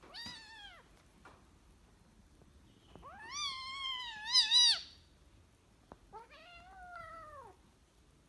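Kitten meowing three times: a short call at the start, a long, loud one about three seconds in that wavers near its end, and a third about six seconds in.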